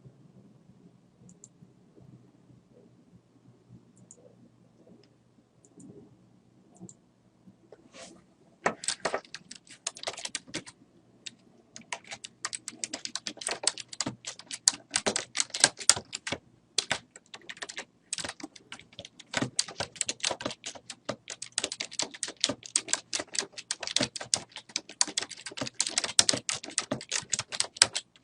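Typing on a computer keyboard: a fast, dense run of keystroke clicks starts about eight seconds in and goes on with a couple of brief pauses. Before that there are only a few faint clicks.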